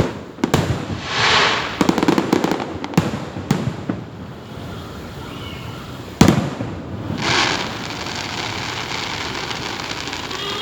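Fireworks shells bursting overhead. A series of sharp bangs and crackling bursts runs through the first few seconds, and the loudest single bang comes about six seconds in.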